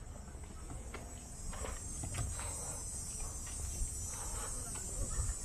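A steady, high insect chorus that swells a little louder partway through, with the light scuff of footsteps and low rumble.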